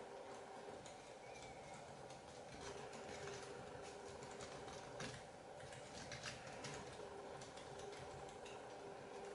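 Faint crinkling and ticking of origami paper being folded and creased by hand, with a cluster of crisp crackles about five to six seconds in, over a steady low hum.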